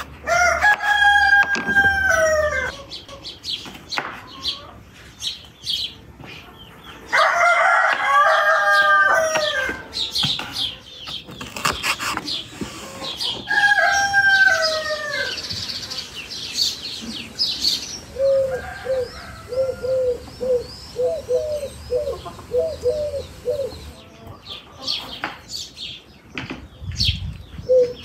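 A rooster crowing three times, several seconds apart, followed by a hen clucking in a quick run of short, repeated notes. Sharp knife cuts on a wooden cutting board near the end.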